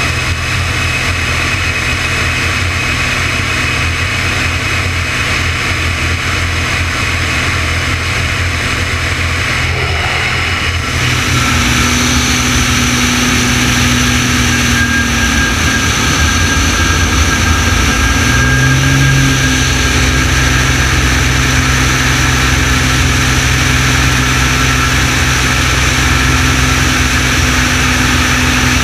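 Extra 300L's six-cylinder piston engine and propeller running steadily in flight, heard through an onboard camera with rushing wind. About eleven seconds in the sound turns louder and brighter, and a little later the pitch briefly rises before settling.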